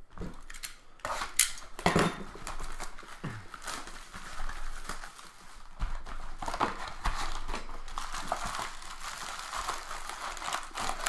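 Foil wrappers of baseball card packs crinkling and tearing as the packs are ripped open and the cards handled: irregular crackling rustles, loudest about one and two seconds in.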